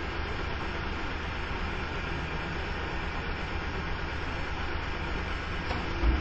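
Garbage truck's diesel engine idling steadily, heard through a security camera's microphone with a constant hiss. A single low thump about six seconds in.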